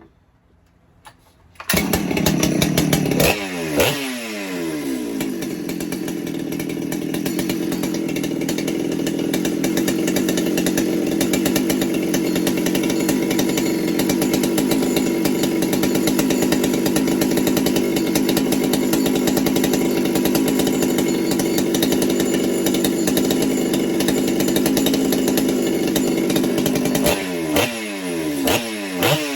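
Ported Husqvarna 395XP two-stroke chainsaw engine starting about two seconds in, blipped up and dropping back, then running steadily, and blipped again near the end. The owner finds it running really rich after setting the low screw at one and a quarter turns.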